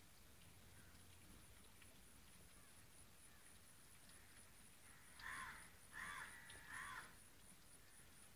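A bird calling three times in quick succession, starting about five seconds in; each call is short and harsh.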